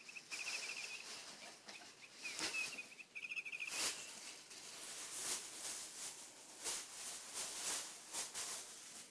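Feathered toy bird giving two quick chirping trills in the first four seconds, with rustling and scuffling as a cat bats and bites at it on the carpet.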